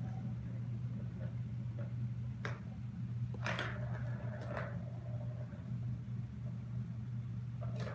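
A steady low hum, with a short click about two and a half seconds in and two brief rustling scrapes about three and a half and four and a half seconds in.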